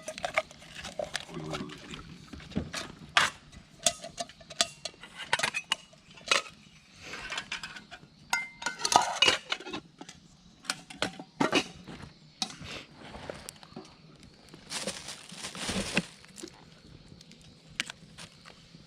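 Camp cookware and utensils clinking and knocking in irregular taps, some ringing briefly. A rushing hiss lasts about a second near the end.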